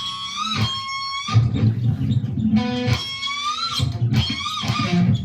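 Electric guitar tuned to drop A playing a low riff on the bottom strings, with a high squealing pinch harmonic twice, each held about a second and bent with vibrato at its end.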